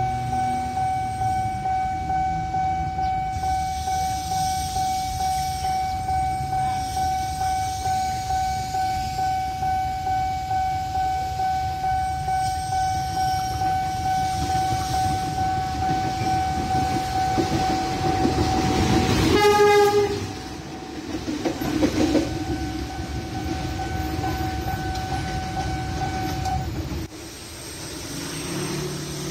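A level-crossing warning alarm sounds steadily with a pulsing ring, about two pulses a second, while an approaching diesel locomotive's rumble builds. About 19 seconds in, the locomotive gives a short horn blast.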